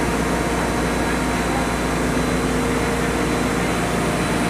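Industrial chemical and spice grinding mill with its cyclone and blower running at full load: a steady, even machine drone with a low hum and a faint high whine.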